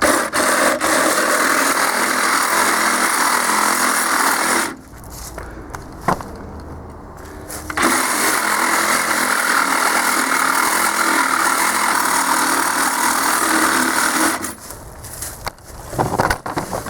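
Cordless Milwaukee Sawzall reciprocating saw cutting through the steel tank of an air compressor. It runs in two long passes with a pause of about three seconds between them, and stops a couple of seconds before the end.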